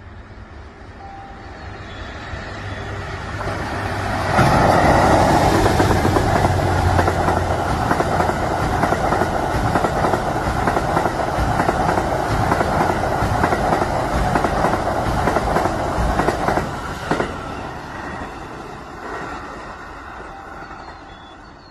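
Cassiopeia sleeper train (E26 series passenger cars) passing close by on the rails, with a rumble of wheels and a clickety-clack over the rail joints. It builds for about four seconds and stays loud for about twelve more. It then drops off sharply and carries on fainter.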